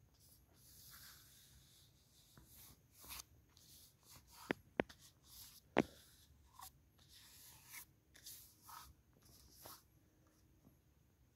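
A hand rubbing and smoothing a freshly pasted paper poster onto a pole, in short papery strokes, with a few sharp clicks about halfway through.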